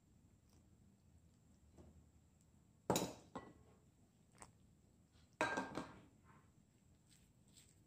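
Two sharp clinks of dishware, about two and a half seconds apart, each ringing briefly: a small bowl knocking against a glass mixing bowl while liquid is poured into flour. A few faint taps come between them.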